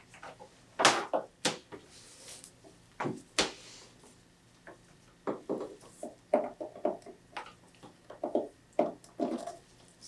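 Handling noises: a scatter of light knocks and clicks as an iMac is tilted back on its stand and its power cord is pushed into the socket on the back.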